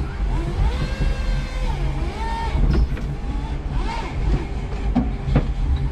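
Electric forklift running with a stack of OSB boards on its forks: a low motor hum with whines that rise and fall in pitch, and two sharp knocks about five seconds in.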